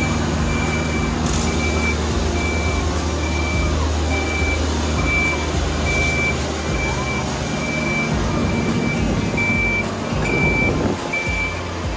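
Boat travel lift driving with a catamaran in its slings: its engine runs steadily under the travel alarm, a high beep repeating about twice a second.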